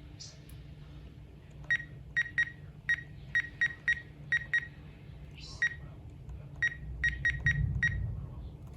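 RadioShack 12-250 weather radio beeping at each keypress as its menu buttons are pressed: about fifteen short beeps at one pitch, in irregular runs of quick presses, over a steady low hum.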